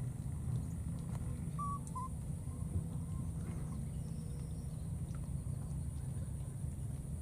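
Outdoor natural ambience: a steady low rumble under a steady high-pitched hiss, with two short high call notes, a bird's or a young animal's, about a second and a half in.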